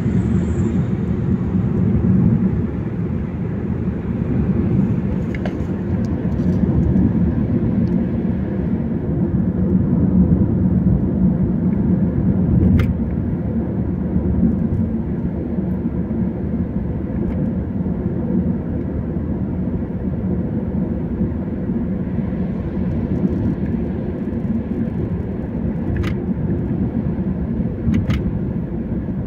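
Steady low rumble of road and engine noise heard inside a moving car's cabin, with a few faint clicks.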